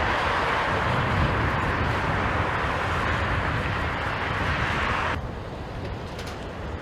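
Loud, steady rushing noise of a passing jet airliner's engines. It cuts off abruptly about five seconds in, leaving a quieter steady background noise.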